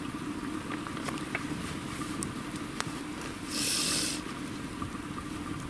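Campfire crackling, scattered sharp pops over a steady low outdoor rumble, with a short loud burst of hiss about three and a half seconds in.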